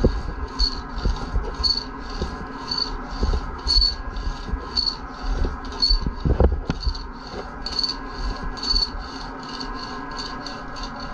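A small ribbed metal laminating roller rattling and scraping as it is rolled back and forth over resin-wet fibreglass cloth on a surfboard bottom. It is pressing a double layer of cloth down to help the resin soak through.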